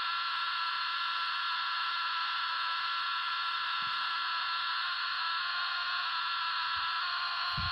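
Portable radio's speaker hissing with steady static and faint whining tones: interference picked up from the switching power supply running beside it. A light knock near the end.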